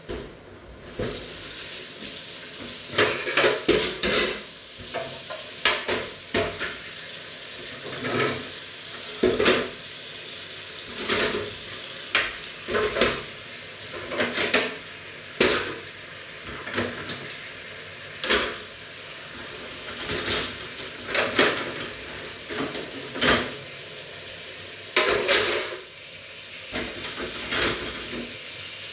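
Tap water running steadily into a stainless steel sink, turned on about a second in, with frequent sharp clinks and clatters of cutlery, pots and dishes being handled in the sink.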